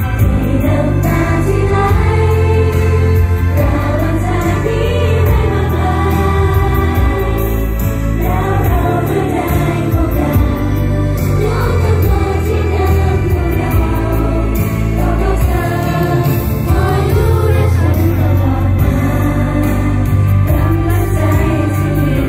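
Large group of female pop idols singing a song in unison into microphones over a backing track with heavy bass, amplified through a concert PA system.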